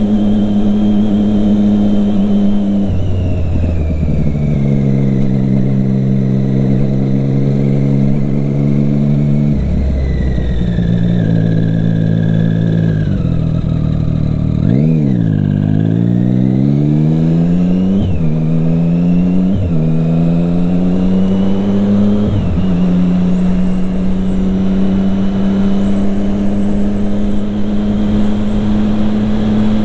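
Triumph Street Triple 675R's inline-three engine through an Akrapovic exhaust: cruising steadily, then easing off and slowing. About halfway through it revs up hard through the gears in three rising pulls, each ended by a quick upshift, before settling into a steady cruise.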